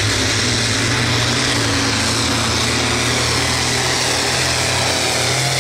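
John Deere hot stock pulling tractor's diesel engine running hard and steady under heavy load as it drags a weight-transfer sled.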